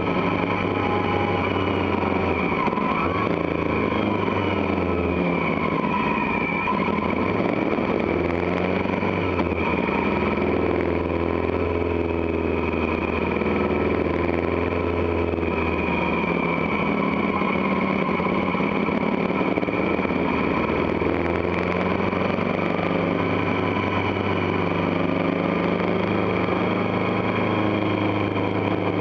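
Motorcycle engine running while riding, its note dropping and rising as the bike slows for bends and speeds up again.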